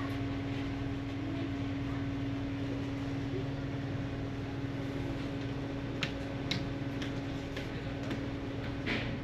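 Steady mechanical hum with a low rumble, with a few light clicks in the second half.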